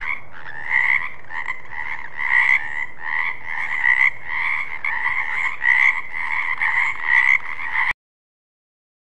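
Frog croaking: repeated calls, about two a second, that stop abruptly near the end.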